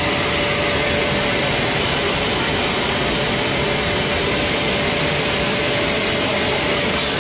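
Pillow fibre-filling machine's blower running steadily: an even rush of air with a faint steady hum.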